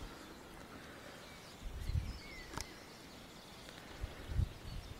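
Quiet outdoor background with two brief low rumbles and a single sharp click about two and a half seconds in.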